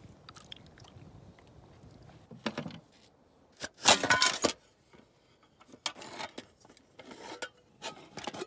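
Aluminium mess kit pots and lid clinking and clattering as they are taken apart and handled: a loud ringing clatter about four seconds in, then a string of lighter clinks.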